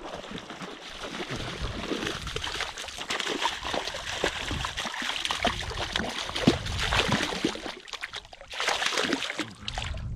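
Water splashing and sloshing, a dense run of small splatters and drips with a stronger burst near the end.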